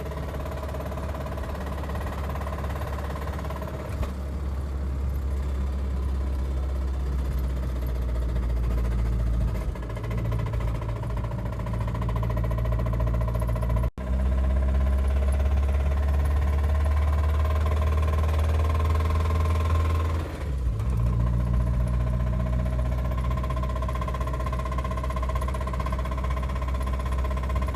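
Honda D16Y7 four-cylinder engine running under way with the knock of a spun rod bearing. The engine note changes twice, about 10 and 20 seconds in, and the sound cuts out for a moment about 14 seconds in.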